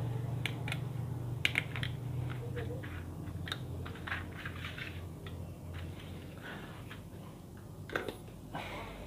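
Scattered light clicks and taps of a power-supply circuit board, its wires and a pair of side cutters being handled on a tabletop, with a sharper click about 8 seconds in.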